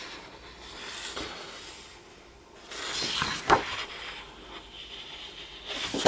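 Sheets of scrapbooking paper being handled and slid over one another: soft rustling, busier after about two and a half seconds, with a sharp paper snap or tap about three and a half seconds in and louder rustling near the end.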